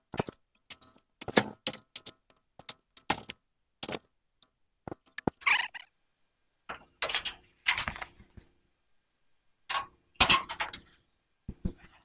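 Black landscape fabric being tugged and pulled loose from the roofing nails along the top of a chicken coop: irregular rustling and scraping with sharp clicks, in short bursts with pauses between them.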